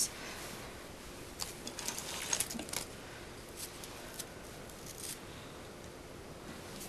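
Light scattered clicks and rustles of painting supplies being handled, a paintbrush among them, bunched in the first few seconds.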